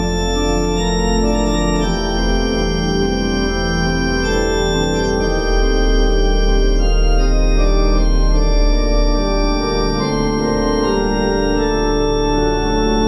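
Organ music: sustained chords with moving inner notes played on the manuals over a held deep pedal bass note, growing a little louder around the middle.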